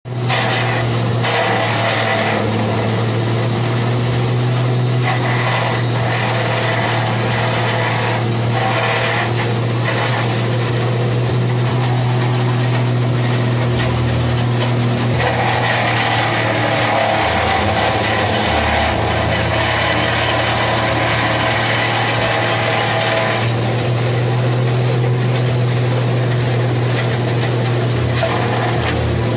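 Small engine driving a grass chopper machine, running steadily at speed. Its sound shifts about halfway through and shifts back later, as the load of grass going through the cutter changes.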